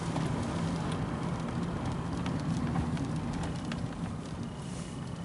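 Car driving, heard from inside the cabin: a steady engine hum and road noise, with scattered light ticks.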